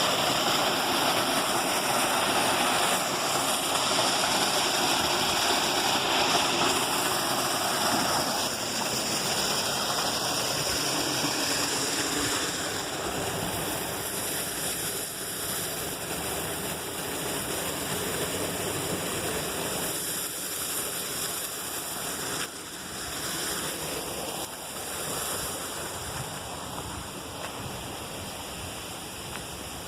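Steady rush of cascading water. It is loudest in the first third and grows gradually fainter after that.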